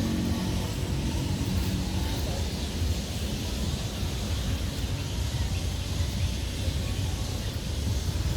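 A vehicle moving: a steady low rumble with an even hiss.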